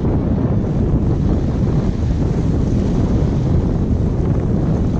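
Strong wind buffeting the microphone, a steady low rumble, with small bay waves washing and breaking on the rocks below.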